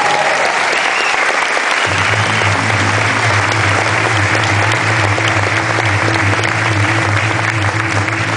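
Audience applauding steadily. About two seconds in, music with a deep steady bass note starts underneath the clapping.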